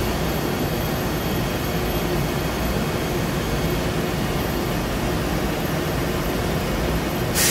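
Steady hum of running machine-shop equipment with a faint steady whine. Near the end a sudden loud hiss cuts in.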